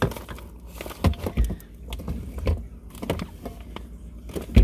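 Rummaging in an open refrigerator: things on the shelves knocked and shifted, with a few dull thumps, over a steady low hum.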